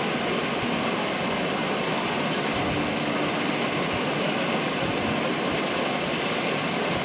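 Steady rushing outdoor noise with the general hubbub of a large crowd, no single sound standing out.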